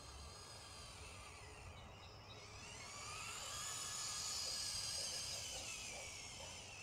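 Small RC tank's electric drive motors and gearboxes whining as it drives itself on a waypoint mission. The whine is faint at first, climbs in pitch and loudness from about a third of the way in, then sinks again near the end.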